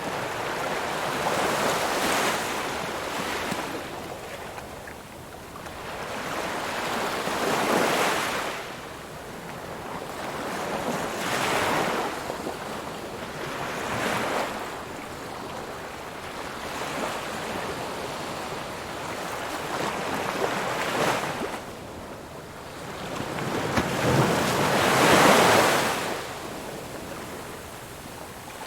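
Ocean waves breaking and washing on a shore, swelling and fading in repeated surges every few seconds, the loudest near the end.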